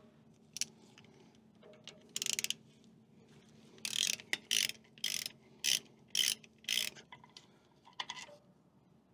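Socket ratchet clicking in short bursts, about two a second, while it works the bolts of a tractor engine's side inspection plate.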